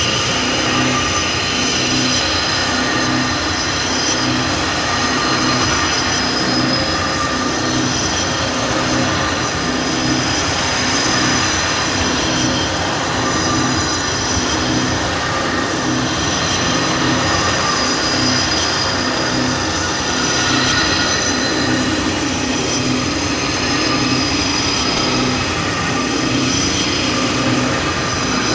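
Abstract experimental electronic noise music from a cassette: a dense, unbroken wash of noise, with a low throb pulsing about once a second under steady high whining tones.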